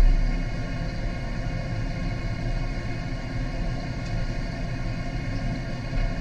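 Steady low mechanical hum and rumble with several constant tones, with a brief low thump right at the start.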